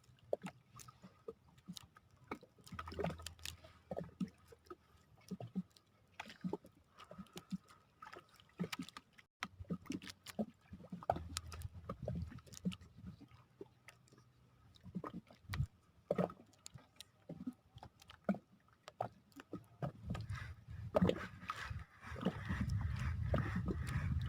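Small waves lapping and sloshing against the hull of a small fishing boat, in irregular splashes and knocks, with a louder low rumble in the last two seconds.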